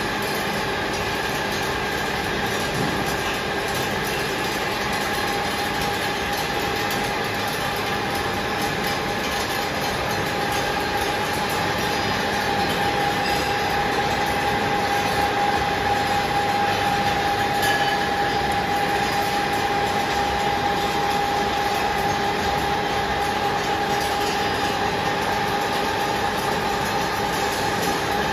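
Heavy engine lathes turning large steel electric-motor shafts: a steady machine hum with a steady high whine that grows louder around the middle.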